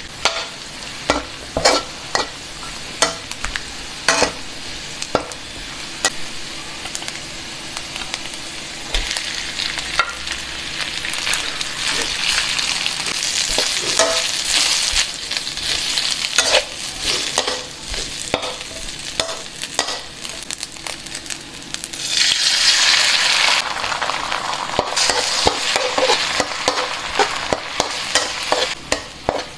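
Food stir-frying in a steel wok: a metal spatula scrapes and clacks against the pan over steady sizzling oil. A little over two-thirds of the way in, the sizzling becomes much louder and denser as an egg goes into the hot oil.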